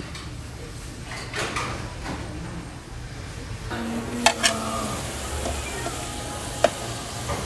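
A metal spatula scrapes seasoned pork tripe off a bowl onto a flat steel griddle, with a few sharp metal clinks in the second half. The tripe sizzles on the hot plate.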